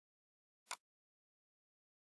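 A single sharp computer mouse click.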